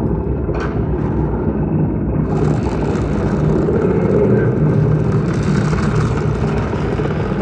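Film sound effects played through a Bose Smart Soundbar 900: a dense, loud low rumble of destruction, with a hissing, crumbling layer joining about two seconds in.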